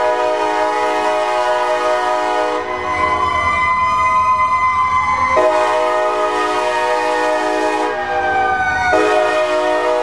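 CSX GP40-2 diesel locomotive's multi-chime air horn sounding at a grade crossing: one blast ends about two and a half seconds in, a second runs from about five to eight seconds, and a third starts near the end. A siren tone rises and falls under and between the blasts, from the Federal Q sirens of the escorting fire trucks.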